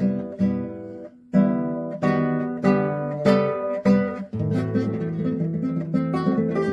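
Acoustic guitar music: plucked and strummed chords, breaking off briefly about a second in, then a run of faster picked notes in the second half.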